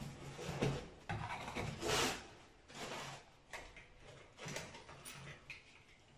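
Hands rummaging through foam and packing in a cardboard box, a series of irregular rustles and scrapes, as the lock's metal mortise body is taken out.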